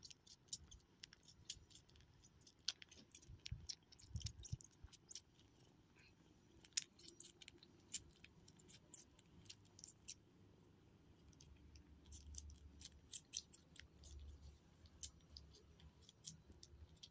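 Near silence: faint room tone with scattered soft clicks and rustles.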